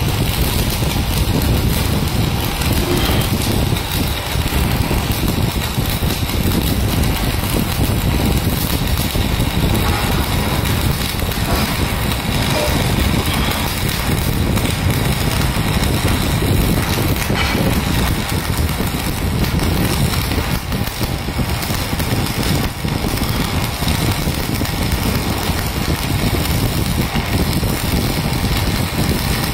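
Electric arc (stick) welding: the arc crackles steadily and loudly, with no break, as the electrode burns along the joint.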